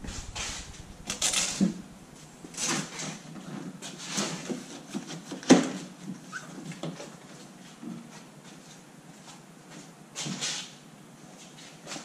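Hand handling of a Jeep Wrangler hardtop's rear trim being pulled off: irregular rubbing, scraping and clicking of rubber and plastic against the body, with one sharp knock about five and a half seconds in.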